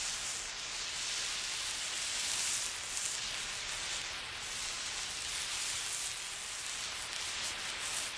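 A burning emergency flare hissing and fizzing steadily as it is moved about, its high hiss swelling and dipping every second or so.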